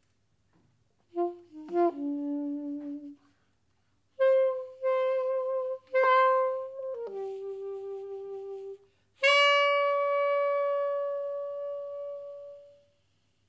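Saxophone playing sparse, separate notes with pauses between them: a short low phrase, then higher notes that waver in pitch, then a lower held note, and finally one long high note that slowly fades away.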